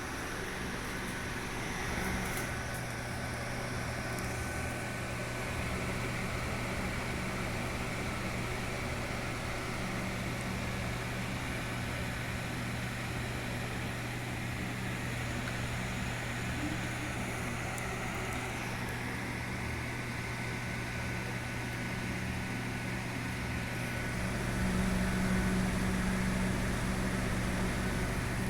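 Mondial Super Turbo VTX 40 cm eight-blade electric fan running steadily: an even rush of moving air over a constant low motor hum, rising slightly near the end.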